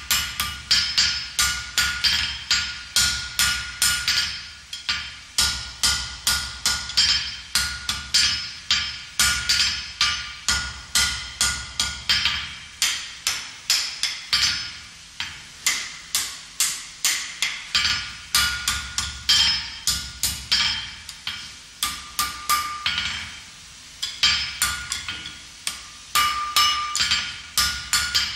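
Blacksmith's hand hammer striking a red-hot thin iron bar on an anvil, about three blows a second, each with a bright ring from the anvil, while forging a sharp angle. The hammering stops for a moment a few times as the bar is repositioned.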